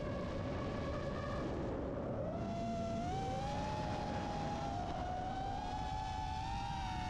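FPV quadcopter's brushless motors and propellers whining, the pitch climbing about two and a half seconds in and then wavering up and down with the throttle, over a steady rushing noise.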